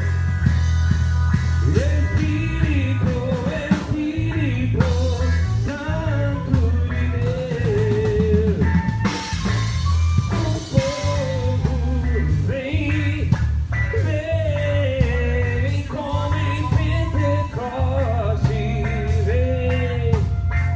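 Music: a singing voice over a drum beat and a heavy bass line.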